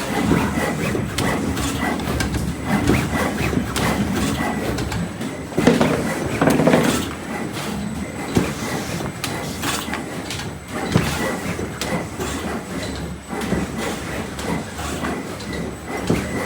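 Several digital plotter machines running together, making a continuous busy mechanical clatter of irregular small knocks. A faint steady high tone runs underneath, and the clatter swells briefly about six seconds in.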